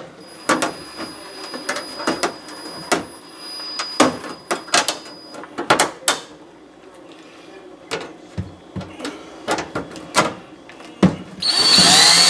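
Scattered clicks and knocks of a sheet-metal oven back panel and its screws being handled. Near the end a power drill starts up, its whine rising in pitch as it begins driving a screw into the panel.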